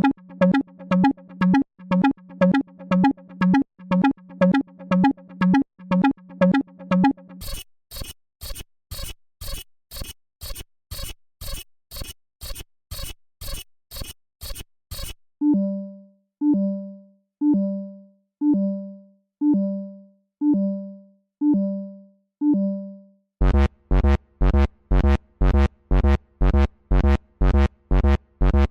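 A run of four synthesized alarm sound effects, each a steadily repeating pulse. First comes a pitched beep about twice a second. About seven seconds in it changes to a hissy pulse at a similar pace, then to slower tones about once a second that each swoop down and settle. From about twenty-three seconds a harsh, rapid buzz repeats about three times a second.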